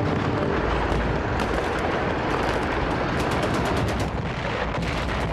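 Battle soundtrack of rifle and machine-gun fire over a low rumble of artillery. Rapid strings of shots come around three seconds in and again near the end.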